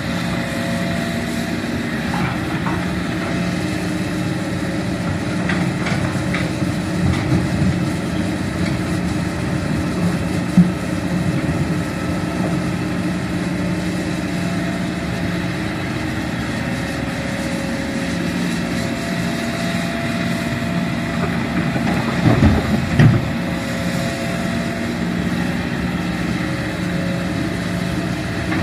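Hitachi Zaxis 210F excavator's diesel engine running steadily under hydraulic load as the machine swings and digs, with the dump truck's engine idling alongside. A few short knocks come about ten seconds in and again around twenty-three seconds.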